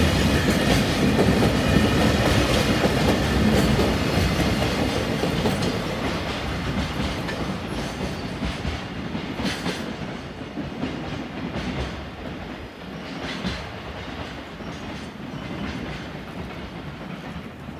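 Container freight train's flatcars rolling past on the rails, with scattered clicks of wheels over rail joints. The sound fades steadily as the last wagons pull away.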